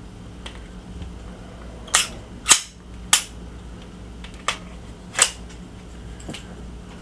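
Glock 17 pistol being handled while unloaded: about five sharp mechanical clicks and clacks of its working parts, the loudest near the middle.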